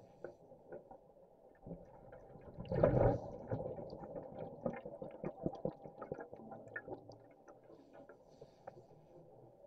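Underwater: a rush of exhaled scuba bubbles about three seconds in, over scattered small clicks and crackles.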